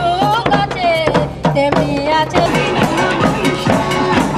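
Background music: a wavering melody line over a steady drum beat.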